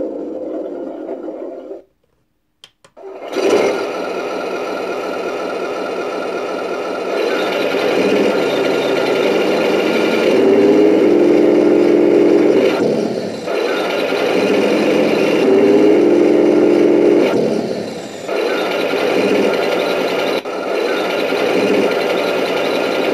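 Simulated tank engine sound from a Heng Long RX18 2.4 GHz sound board, played through the RC tank's small speaker. It cuts out about two seconds in, starts again a second later, then runs steadily with two longer surges in pitch and loudness, as if the engine is revving up and settling back.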